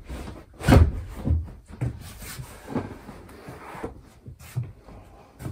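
Foam upholstered cushions being pushed, lifted and dropped into place on a wooden dinette bench: a run of irregular soft thumps and knocks with shuffling between them, the loudest about three-quarters of a second in.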